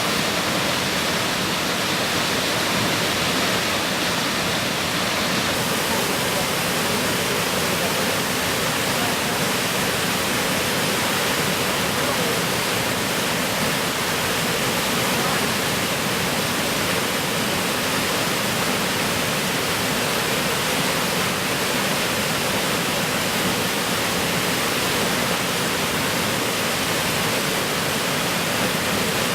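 Big Bradley Falls rushing: a steady, even roar of falling water that does not change.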